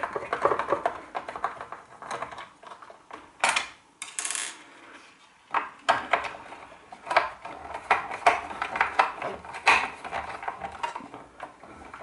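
Small clicks and rattles of hand tools and hardware as a screwdriver works the screws out of an electric shower's plastic pressure-switch housing, with a brief hiss about four seconds in.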